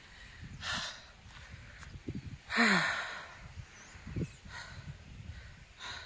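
A woman's breathy sighs and exhales, with a short falling, voiced "ahh" about two and a half seconds in and another about four seconds in.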